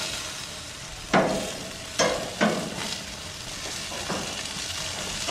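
Bratwurst sizzling on a grill grate, a steady hiss broken by several sharp pops as the sausages spit fat.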